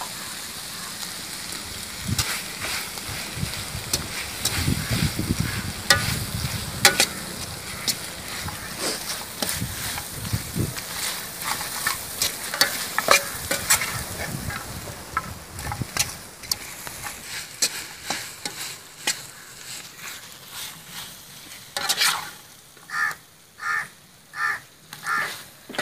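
Chicken and onions sizzling in a hot metal wok while a slotted metal spatula stirs and scrapes them, with many sharp clicks of the spatula against the pan. Near the end come about five short, evenly spaced strokes.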